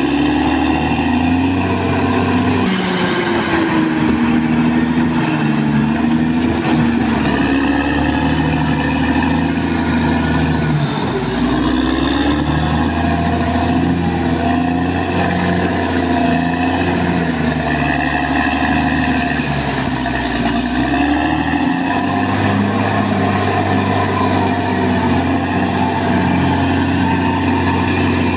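Caterpillar D6R XL bulldozer's diesel engine running steadily, its pitch rising and falling as the engine speed changes.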